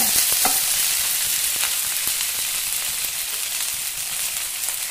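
Chopped garlic and ginger paste sizzling steadily in hot oil in a nonstick kadai, easing off slightly. A few light taps come from the steel spoon stirring it.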